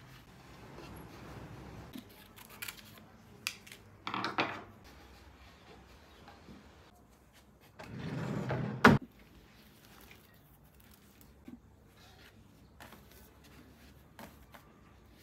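Household items being handled: scattered light clicks and two short rustles, ending in one sharp, loud click about nine seconds in.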